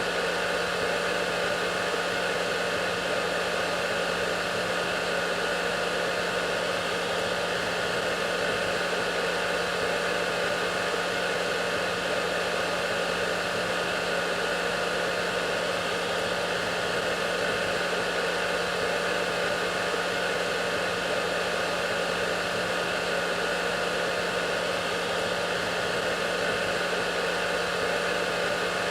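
Hair dryer running steadily: an even rushing blow with a constant low hum and a few faint steady whining tones above it.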